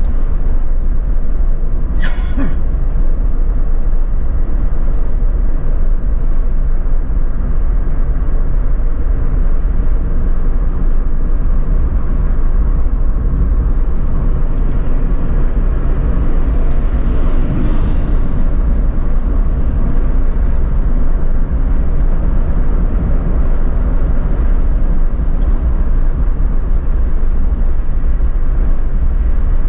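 Steady low road and engine rumble inside a Suzuki Alto's cabin at highway speed, with a brief whoosh about two seconds in and a fainter one near eighteen seconds as oncoming vehicles pass.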